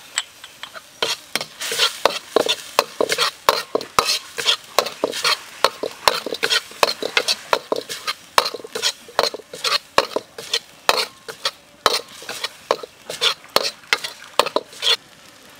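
A steel ladle scraping and clinking around a steel wok as curry paste is stir-fried, quick strokes about three a second with a light sizzle underneath. The stirring starts about a second in and stops just before the end.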